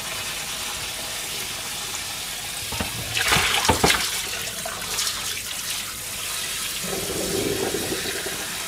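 Water running steadily in a kitchen, with a short louder rush and a few sharp knocks like dishes or utensils clattering about three seconds in.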